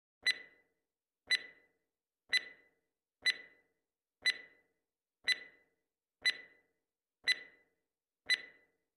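Countdown timer sound effect: nine sharp clock-like ticks, one a second, each with a brief ringing tone that dies away quickly.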